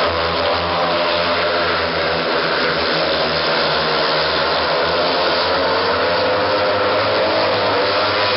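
Several speedway motorcycles racing, their 500 cc single-cylinder methanol engines running hard without a break, the engine note wavering up and down as the riders go through the bends.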